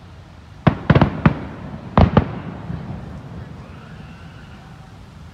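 Fireworks shells bursting in the sky, heard from afar: a quick run of four bangs about a second in, then two more a second later, each with a fading echo.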